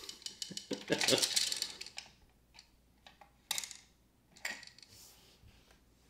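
Plastic gears of a Downspin game unit clicking as the game key turns them, with small plastic tokens clattering inside: a burst of rattling about a second in, then a few scattered clicks.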